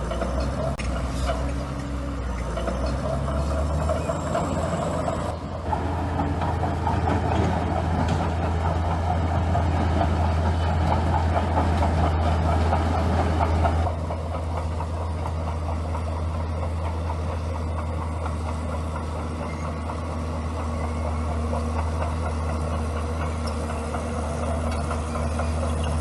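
Bulldozer's diesel engine running under load. It grows louder about a quarter of the way in and drops back suddenly a little past the middle.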